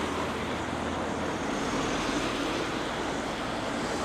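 Steady road traffic noise, an even rumble and hiss of passing vehicles with no distinct single event.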